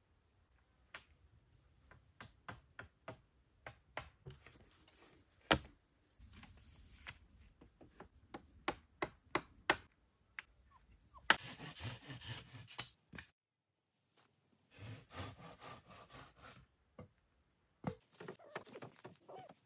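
Wood being worked and handled by hand: scattered clicks and knocks of sticks and branches, with two loud sharp knocks about five and a half and eleven seconds in, and short stretches of scraping around twelve and sixteen seconds.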